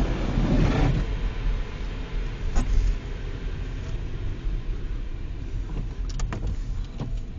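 Car cabin noise while driving on a snowy road: a steady low rumble of engine and tyres. There is a sharp click about two and a half seconds in and a few lighter clicks near the end.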